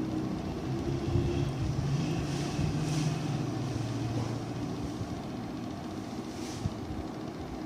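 A low, engine-like rumble over a steady background hiss, swelling about a second in and fading a few seconds later.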